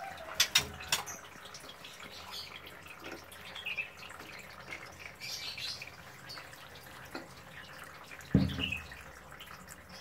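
Water poured from a plastic bucket onto the sand floor of a bird aviary, splashing and dripping as the sand is soaked, with a louder low thump a little after eight seconds. Caged birds give short chirps now and then.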